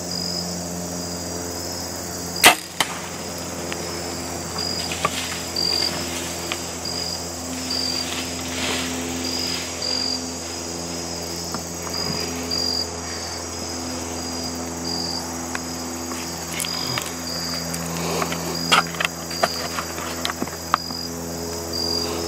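A single sharp crack of a compound bow being shot, about two and a half seconds in, the loudest sound by far. Insects chirp in a steady rhythm throughout, with scattered small rustles and clicks near the end.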